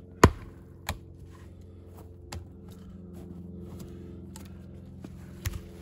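A splitting axe strikes wood on a chopping block with one sharp, loud blow about a quarter second in, followed by a few lighter wooden knocks. A steady low engine hum runs underneath.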